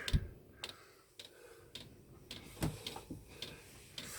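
Diesel air heater's fuel dosing pump ticking about twice a second as it pulses fuel during start-up, with a heavier thump just after the start.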